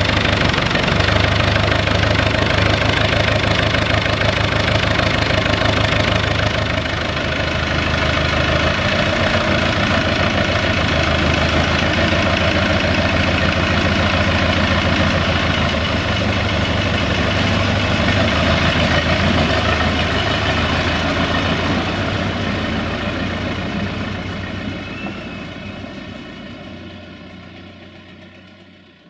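UTB-Fiat 445 DT tractor's diesel engine idling steadily while it warms up after a cold start in freezing weather. The sound fades away over the last several seconds.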